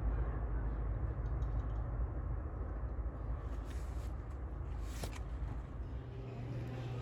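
Ceiling fan running: a steady rush of moving air with a low rumble. There is a sharp click about five seconds in, and a steady low hum comes in near the end.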